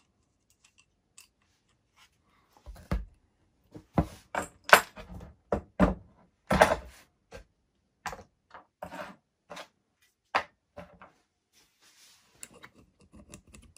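Handling clatter on a workbench: an irregular run of sharp clicks and knocks over several seconds, loudest about five and seven seconds in, as the black plastic EDF fan impeller and small parts are handled.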